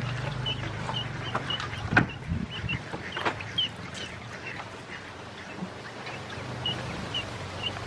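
Ducklings peeping in short high chirps, about two or three a second, with a few sharp clicks from the water of the pool and a low steady hum underneath.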